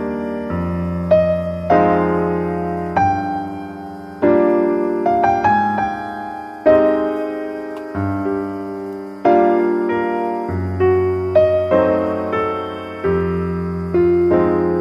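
Background piano music: slow chords, each struck and then left to fade.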